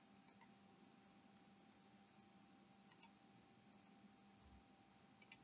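Near silence: room tone with a few faint, brief clicks.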